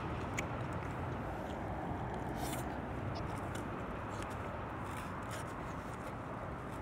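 Steady outdoor background noise with a few faint scattered clicks and rustles from eating out of a foam takeout container.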